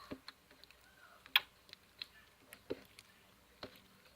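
Slime being kneaded by hand, giving scattered soft clicks and sticky pops at an irregular pace, the loudest about a second and a half in.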